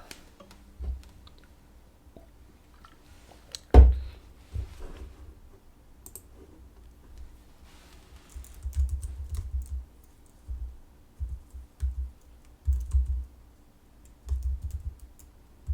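Scattered clicks and soft low knocks, like something being handled or tapped, with one sharp click about four seconds in and bursts of knocks in the second half, over a faint steady hum.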